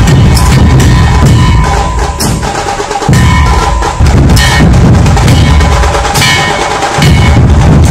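Loud drum-led music with a driving percussion beat, cutting out briefly twice partway through.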